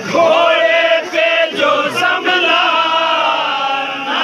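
Men's voices chanting a noha, a Muharram lament, in long, held, sing-song lines. A leader reciting from a written sheet is joined by the group around him.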